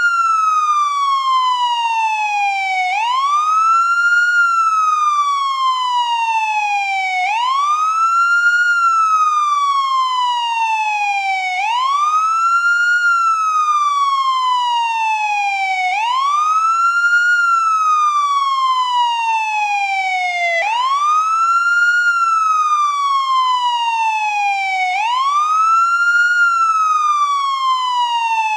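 American police car siren on the wail tone: each cycle is a quick rise in pitch and then a slower fall, repeating steadily about every four seconds.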